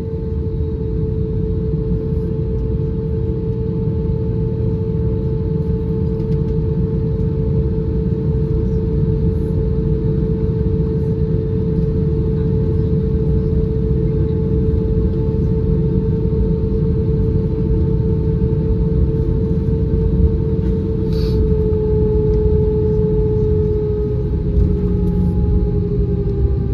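Airbus A321's twin CFM56 turbofan engines at taxi idle, heard inside the cabin over the wing: a steady low rumble with a constant droning hum that dips slightly in pitch near the end.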